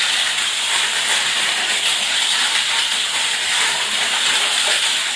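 Two Tamiya Mini 4WD cars running laps on a plastic two-lane track: a steady, high-pitched whirring hiss of their small electric motors and gears.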